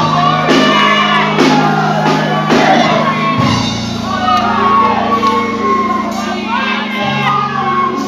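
Live gospel praise singing: a group of singers on microphones over a band with a drum kit, amplified through the hall's speakers.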